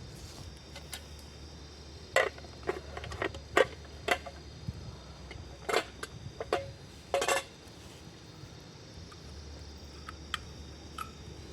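A run of irregular clicks, knocks and clinks, about a dozen over five seconds, some ringing briefly, like small hard objects being handled. A steady low hum underlies them.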